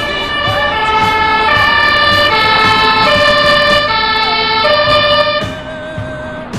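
Two-tone sirens of fire engines approaching, several overlapping, their high and low notes alternating about once a second. They fall off somewhat near the end.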